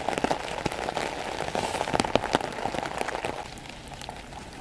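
Heavy rain falling on a tent's fabric: a dense patter with many sharp single-drop hits, from rain that has soaked the tent and is starting to come through. About three and a half seconds in, it gives way to a quieter, even hiss.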